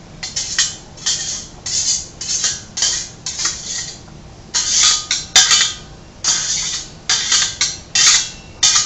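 A kitchen utensil scraping and clattering against cookware in short, irregular strokes, clearing the last of the drained spaghetti out.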